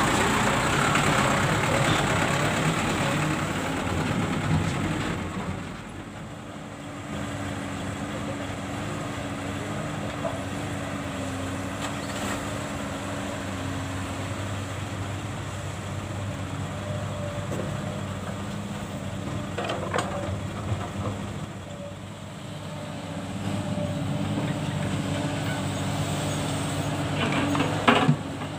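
Diesel engines running: a Mitsubishi Canter dump truck running close by for the first few seconds, then the steady hum of a Komatsu PC200 excavator at work. Near the end comes a sharp clatter as a bucketful of soil drops into the dump truck's steel bed.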